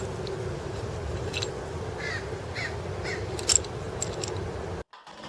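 Three short bird calls in quick succession over a steady background hiss, with a few faint clicks. The sound cuts off abruptly near the end.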